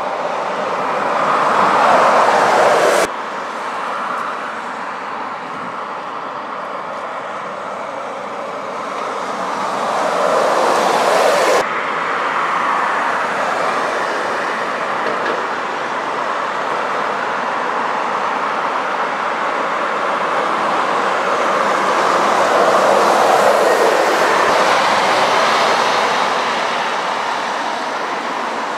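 City buses and cars passing on a street: engine and tyre noise swelling three times as vehicles go by, breaking off suddenly twice.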